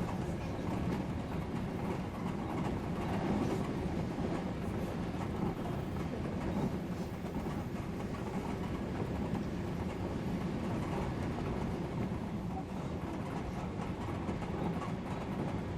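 Odakyu electric commuter train running at speed, a steady rumble of wheels on rails heard from inside the leading car.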